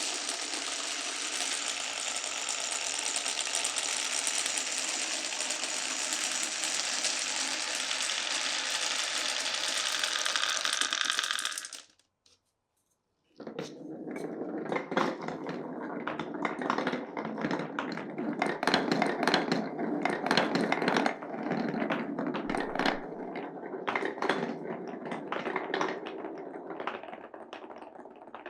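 Glass marbles rolling on a wooden marble run. A dense, continuous rolling rattle lasts about twelve seconds and cuts off to a second of silence, then comes a busy run of quick clacks and rattles as marbles knock along the track pieces.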